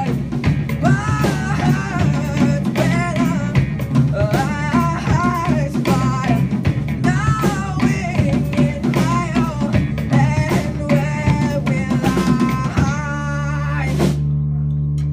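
A live rock band of electric guitar, bass guitar and drum kit playing loud, with a wavering melody line over steady drum hits. About thirteen seconds in the drumming stops and a final held chord rings out.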